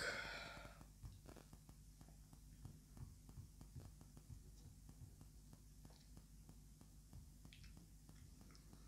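Near silence: a faint steady hum with light, irregular ticks of a finger tapping and scrolling on a smartphone screen lying on a table.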